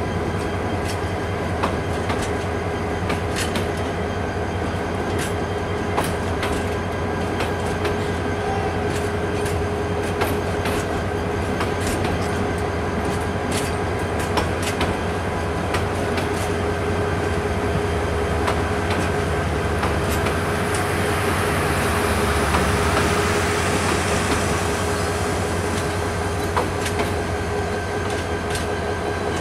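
Passenger train coaches rolling past close by: a steady rumble of wheels on rail, broken by irregular sharp clacks as the wheels cross the rail joints, with a steady tone running underneath.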